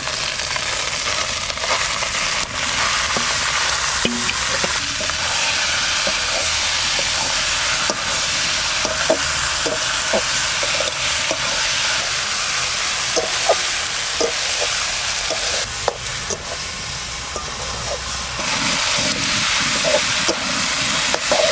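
Marinated duck meat sizzling as it fries in hot oil in a karahi, with a metal spatula scraping and clicking against the pan as it is stirred. The sizzle eases a little near the end.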